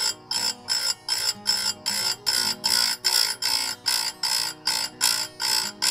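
Oregon 520 chainsaw grinder's wheel grinding saw-chain teeth one after another: a rasping grind about three times a second over the motor's steady hum.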